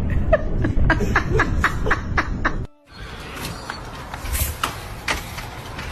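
Someone laughing in a quick run of short bursts, about four a second, which stops abruptly; quieter scattered sounds follow.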